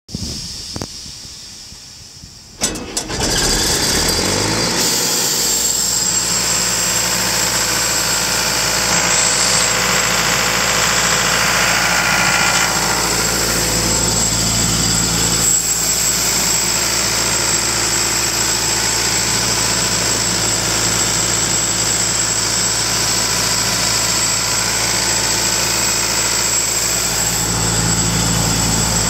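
Caterpillar 3054 naturally aspirated four-cylinder diesel engine on a LeRoi air compressor starting: it catches suddenly about two and a half seconds in, picks up speed, and settles into steady running.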